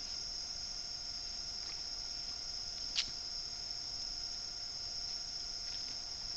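Steady, high-pitched trilling insect chorus, with one sharp click about three seconds in.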